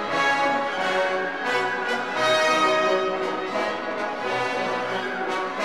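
Orchestral background music with brass, playing held notes that change every second or so.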